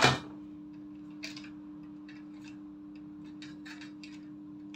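Combination pliers picked up off the bench with a sharp clack right at the start, then faint, irregular clicks as they twist stripped wire ends together. A steady low hum runs underneath.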